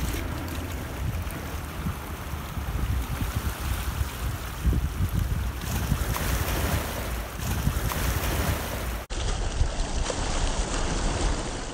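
Wind buffeting the microphone over the wash of choppy shore water around rocks, a steady rumbling noise with no clear single event.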